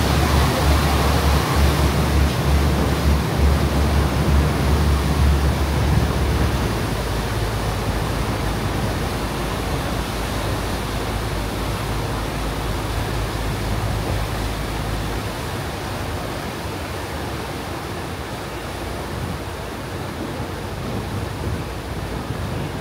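Steady rushing of a ferry's churning propeller wake behind the stern, with a low rumble underneath that eases about six seconds in.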